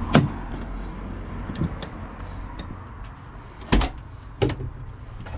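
Rear door of a Mercedes Sprinter van being unlatched and opened: a sharp click of the handle's latch just after the start, then two loud metallic clacks about four seconds in as the door is worked open, over a steady low outdoor hum.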